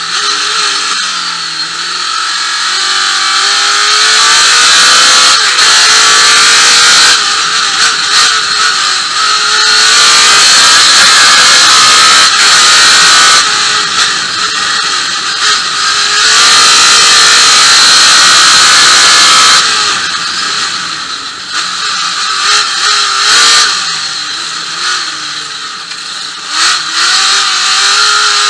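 Chevy trophy truck's V8 race engine heard from inside the cab at racing speed, loud and running hard. Long full-throttle pulls alternate with stretches where the revs fall and rise again, as the driver lifts and gets back on the throttle through corners.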